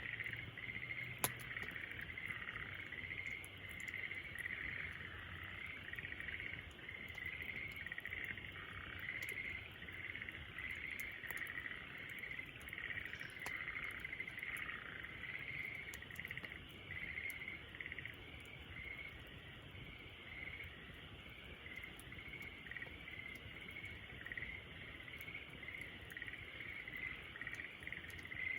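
Steady chorus of crickets chirping in pulsing trills, with the faint snaps of a crackling campfire and one sharp pop from the fire about a second in.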